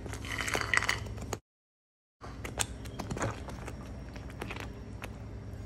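Silicone spatula stirring fried cashews into thick curry gravy in a nonstick pan: soft scrapes and light taps over a low steady hum. The sound cuts out completely for under a second about a second and a half in.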